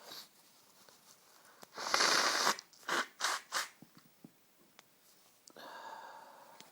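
A person with a head cold breathing and sniffing in the middle of a sneezing fit: a sharp breathy burst about two seconds in, three quick sniffs right after, and a longer drawn-in breath near the end.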